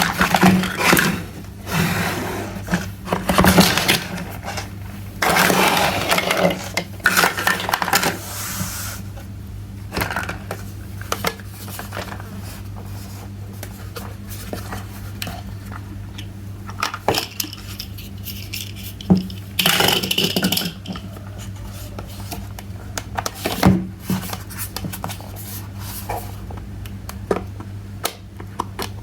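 Small plastic toy kitchen pieces clicking and clattering as they are unboxed and handled, with stretches of noisy rustling and scraping in the first several seconds and again about twenty seconds in. A steady low hum runs underneath.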